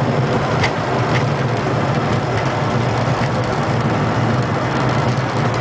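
Cockpit noise of a Bombardier Challenger 300 on its landing rollout: a steady low rumble from the engines and the wheels rolling on the runway, with a few faint clicks.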